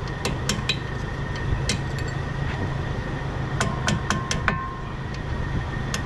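Light, irregular taps of a brass hammer on a long steel punch, driving a pad retaining pin out of a Brembo brake caliper. The taps are scattered at first, then a quicker run of about six comes a little past halfway, with a brief metallic ring.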